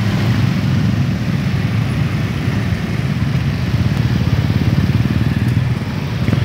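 A dense stream of small motorcycles and motor scooters riding past close by, their engines running together in a steady mass.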